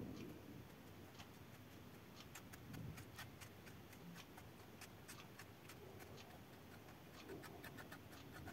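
Near silence with faint, irregular clicks and ticks, several a second in places.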